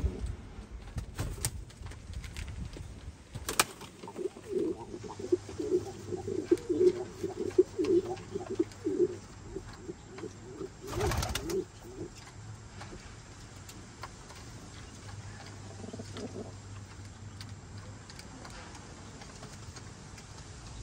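Domestic fancy pigeons cooing: a run of rolling coos for about five seconds from around four seconds in, then fewer, softer coos later. A few sharp clicks fall among them.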